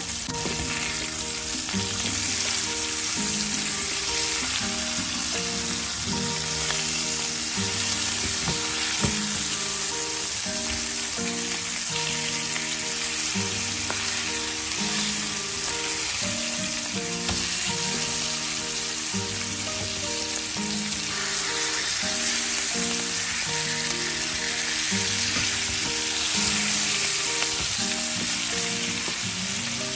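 Masala-coated fish steaks sizzling steadily in hot oil in a frying pan, with the pieces turned now and then with a wooden spatula. Background music with a repeating run of low notes plays under the sizzle.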